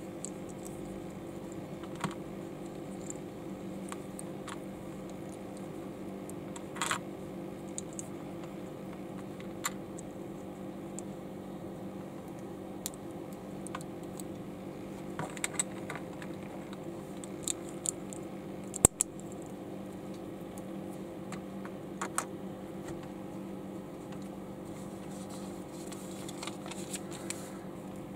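Plastic LEGO bricks clicking and clattering as they are handled: scattered small clicks, with one sharper click a little past two-thirds of the way in, over a steady low hum.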